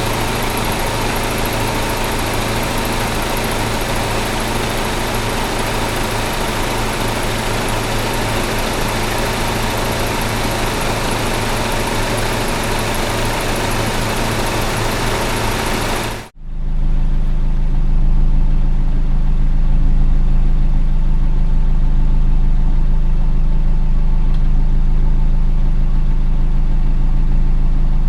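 Car engine sound effects, two clips in a row. A running car engine with steady tones under a broad hiss cuts out about 16 seconds in. After a brief gap, a deeper, steady engine idle follows.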